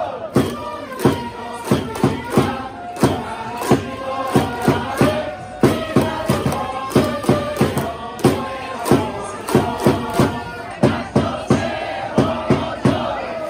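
A stadium cheering section of baseball fans singing a player's cheer song in unison, with a steady beat of clapped plastic megaphone bats, as each starter is introduced.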